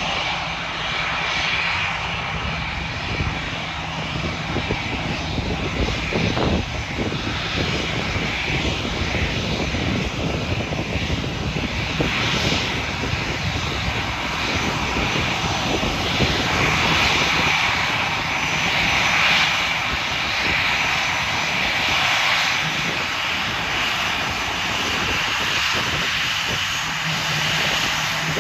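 Airbus A320-family airliner's turbofan engines at taxi power: a steady jet whine over a low rumble. The whine grows louder about halfway through as the jet turns past.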